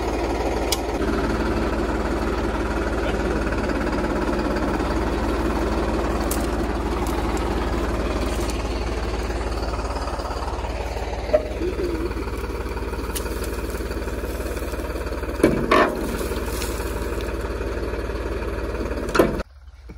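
New Holland 3630 tractor's three-cylinder diesel engine running steadily while it pulls a reversible plough, with a few sharp knocks in the second half. The engine sound cuts off abruptly just before the end.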